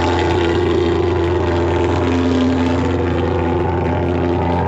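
Thermal fogging machine running with a steady, even drone as it blows out disinfectant fog.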